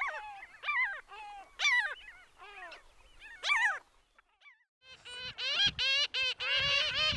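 Long-tailed jaeger (long-tailed skua) calling: about ten sharp calls that slide down in pitch. After a pause of about a second, pomarine jaeger (pomarine skua) calls begin in a rapid, continuous run of short calls.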